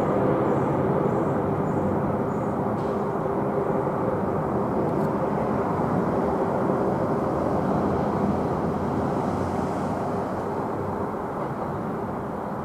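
Boeing 747 cargo jet on approach with its landing gear down, the steady noise of its four jet engines heard from the ground, slowly fading toward the end as it moves away.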